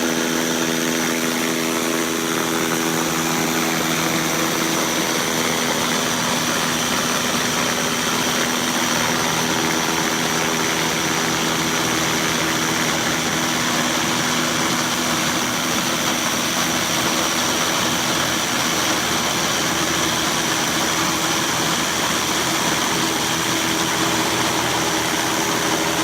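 Blastrac 335 self-propelled concrete scarifier running steadily, its cutter drum milling a concrete floor with a continuous rough grinding over the machine's hum.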